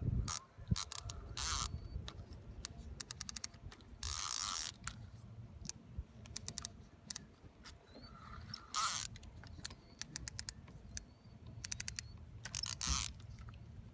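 Spinning reel's drag clicking in quick runs, with several brief buzzing spurts as a hooked fish pulls line off the spool during the fight.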